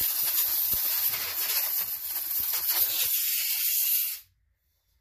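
Compressed-air blow gun hissing steadily as it cleans debris off transmission parts, then cutting off suddenly about four seconds in.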